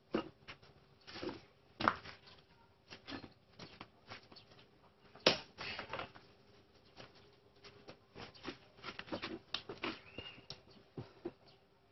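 Hands handling a motorcycle's rubber inner tube and tools: irregular rubbing, scraping and small clicks, with one sharper knock about five seconds in.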